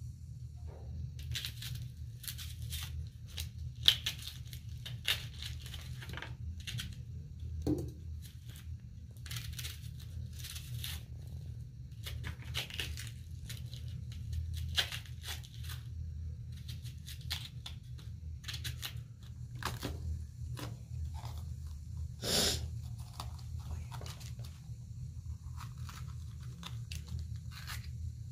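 Knife peeling the dry, papery skins off small onions: irregular crackling and tearing scrapes, one after another, over a steady low hum.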